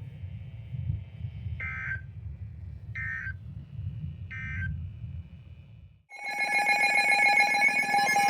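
Emergency Alert System end-of-message data bursts: three short, identical screeching digital chirps about a second and a half apart, over a low hum. About six seconds in, the loud two-tone EAS attention signal starts and holds steady.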